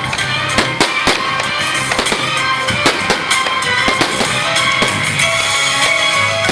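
Fireworks bursting and crackling in quick, irregular succession, several bangs a second, over loud music with a steady bass line.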